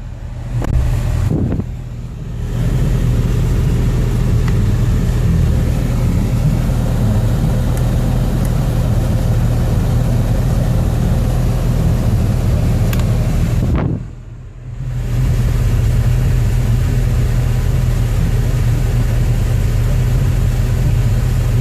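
2008 Corvette's V8 engine running steadily with a low drone, easing off briefly near the start and again about fourteen seconds in.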